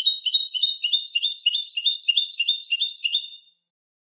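European goldfinch singing, repeating the same short phrase of high notes about three times a second. The song stops a little after three seconds in.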